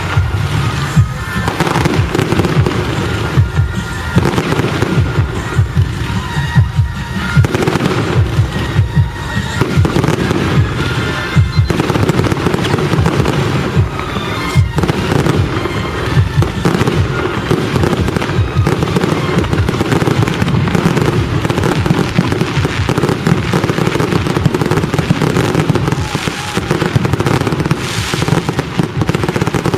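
Fireworks display firing a dense, continuous barrage of bangs and crackle.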